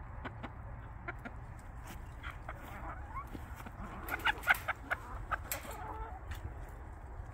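A flock of chickens, hens and roosters together, clucking steadily as they feed, with a brief cluster of louder, sharper sounds about four seconds in.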